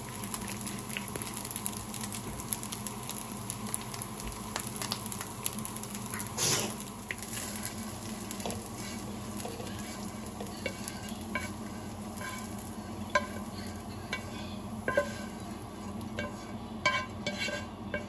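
Rice sizzling in a nonstick frying pan while a wooden spatula stirs and scrapes it. In the second half, sharp taps and clicks as the rice is scraped out of the pan into a bowl.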